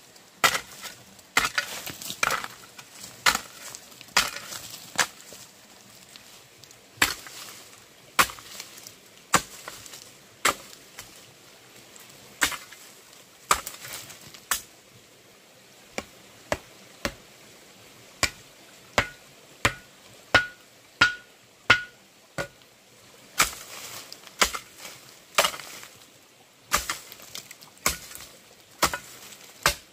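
Irregular series of sharp chopping blows on wood, roughly one to two a second with short pauses. A few blows about two-thirds through ring briefly.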